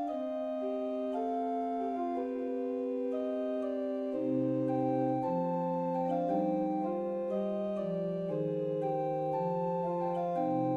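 Slow background music of sustained organ-like keyboard chords, with held notes shifting every second or so and a lower bass line coming in about four seconds in.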